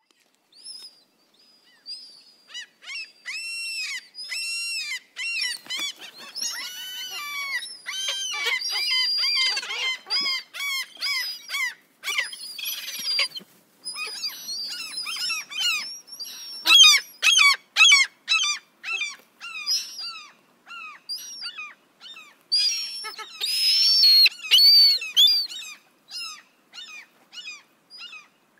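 Seagulls calling. A few separate calls begin about a second in, then build into many overlapping calls from several birds, broken by brief pauses.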